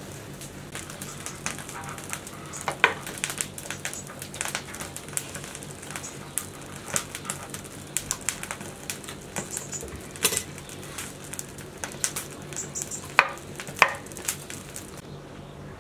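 Knife scraping and cutting singed lamb trotters on a wooden cutting board: a steady run of quick scratchy scrapes and clicks, broken by a few sharper knocks of blade and bone on the board.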